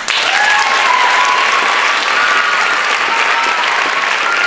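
Audience applauding loudly, with a few voices cheering above the clapping.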